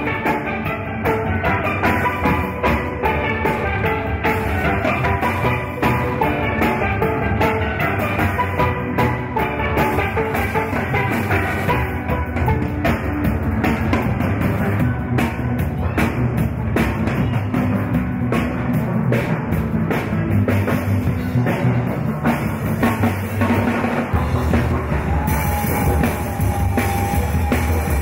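Steel orchestra playing a tune: many steel pans sounding melody and chords over a drum kit keeping a steady beat.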